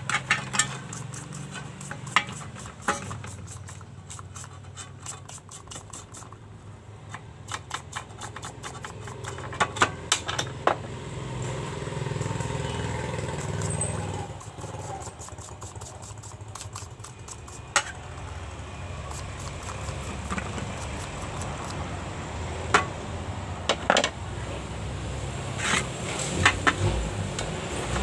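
Metal stove parts clinking, tapping and knocking as they are handled and worked on, with runs of quick sharp clicks, over a low steady hum.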